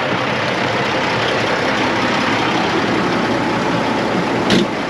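Heavy engine of harvest machinery running steadily, with a single short knock about four and a half seconds in.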